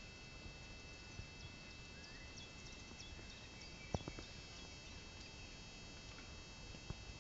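Quiet outdoor background: a faint steady hiss with small birds chirping faintly in the distance, and a single sharp click about four seconds in.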